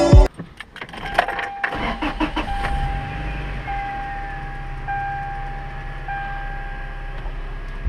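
Toyota Tacoma pickup's engine starting after a few clicks, then idling with a steady low hum, while a dashboard warning chime sounds a steady tone broken by brief gaps about every second.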